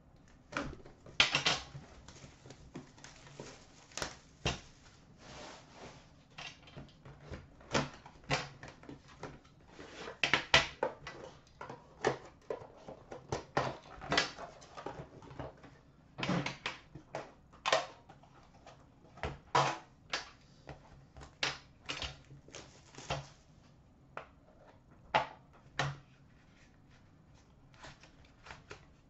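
Handling noise from a trading-card box tin being unwrapped and opened: irregular crinkles, clicks and taps of plastic wrap, the metal tin and its lid.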